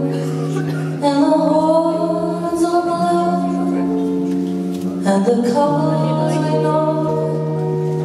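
A woman singing long held notes into a microphone, accompanied by guitar and double bass.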